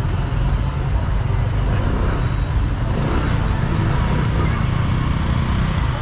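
Street traffic: a car engine and motorbikes running, a steady low rumble with road noise.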